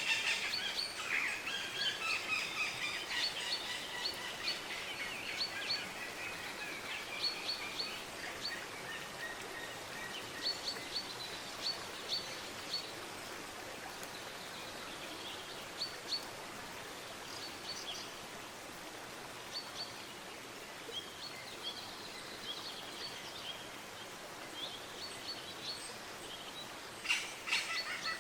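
Songbirds chirping and calling over a steady background hiss of outdoor ambience. The calls are dense for the first several seconds, then come in scattered short chirps, with a brief flurry near the end.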